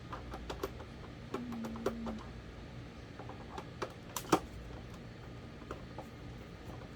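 Scattered light clicks and knocks of plastic electric-fan parts being handled and pushed together, with two sharper clicks a little past the middle. A brief low steady tone sounds about a second and a half in.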